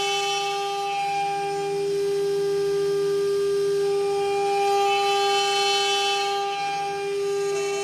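CNC router spindle whining at a steady pitch as its straight bit cuts into a wooden workpiece turning on the rotary axis. The hiss of the cut swells twice, near the start and again about two-thirds of the way in.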